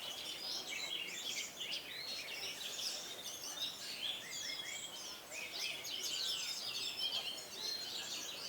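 Many caged orange-headed thrushes singing at once, a dense, overlapping tangle of chirps and whistles with no pause.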